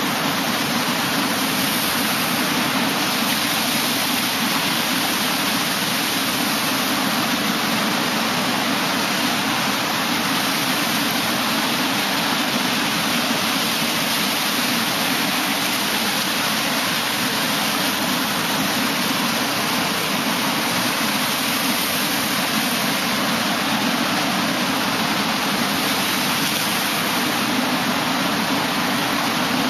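Ocean surf breaking and washing over the sand and rocks close by, a steady, continuous rush of water and foam.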